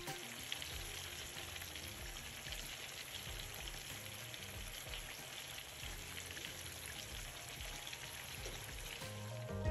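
Seasoned chicken pieces frying in hot oil in a pan, browning, with a steady sizzle and crackle.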